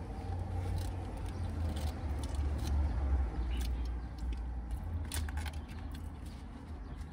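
A steady low rumble with a few soft clicks and crackles of food being handled and chewed.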